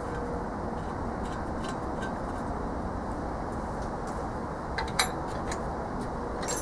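Steady background hum with a few light taps, then a sharp metallic clink with a brief ring about five seconds in as a ratchet wrench is picked up off the wooden board.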